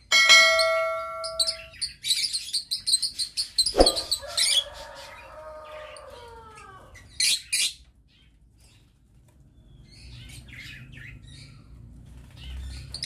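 A flock of lovebirds chirping in quick high twitters that come in bursts, with a quieter stretch just past the middle. A short ringing chime sounds in the first second and a half.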